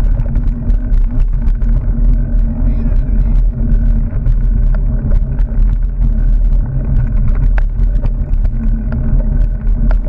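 Mountain bike rolling along a dirt singletrack, heard through a mounted camera: a loud, steady low rumble of vibration and wind, broken by many sharp clicks and knocks as the bike jolts over bumps.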